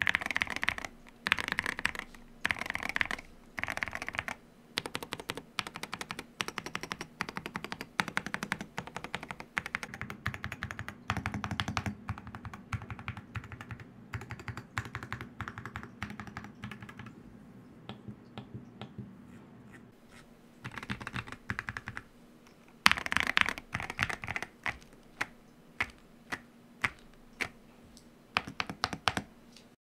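Akko MU02 walnut-case, gasket-mount mechanical keyboard with stock Akko Rosewood linear switches and MOA-profile double-shot PBT keycaps being typed on. A few short bursts of keystrokes, then a long run of fast typing, a brief lull, and single keystrokes about two a second near the end.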